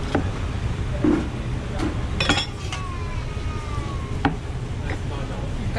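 Bluefin tuna being cut with a long fish knife on a plastic cutting board: scattered short knocks and taps of the blade, with one ringing metal clink a little over two seconds in, over a steady low hum.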